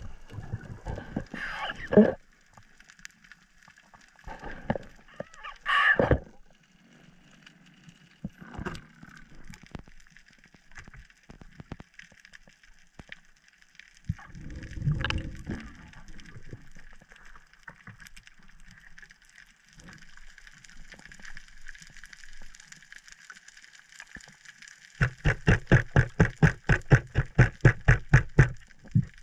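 Splashing and water rushing past the mask and camera as a snorkelling spearfisherman ducks under. Then muffled underwater quiet with a faint hiss and a single thump about halfway through. Near the end comes a fast, even pulsing of about seven beats a second.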